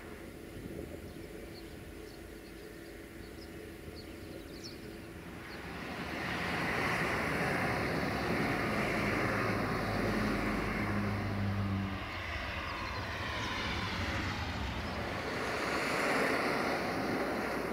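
Sulzer diesel engine of an LDE2100 (060-DA) diesel-electric locomotive running as it approaches hauling a freight train: a steady low drone with a rushing rumble over it. It grows clearly louder about six seconds in.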